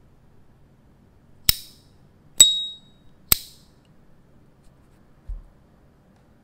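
Brushed-gold S.T. Dupont Ligne 2 lighter lid clicking three times, about a second apart. The middle, loudest click rings with a short clear high ping, the lighter's signature "cling" as the lid opens. A soft low thump follows near the end as the lighter is set down.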